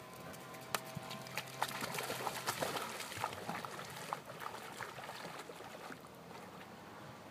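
Pharaoh hound splashing as it bounds and wades through shallow lake water, a rapid irregular run of splashes that thins out and fades over the last few seconds as the dog moves into deeper water.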